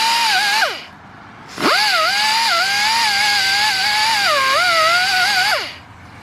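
Angle grinder whining at full speed as it strips paint off a sticking brake pad to make it fit, its pitch dipping when pressed into the work. It winds down about two-thirds of a second in, spins back up about a second later, and winds down again near the end.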